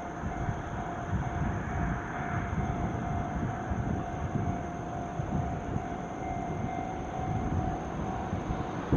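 Container freight train hauled by a JR Freight EF210 electric locomotive running past, a continuous rumble of wheels on rail with a steady thin tone above it.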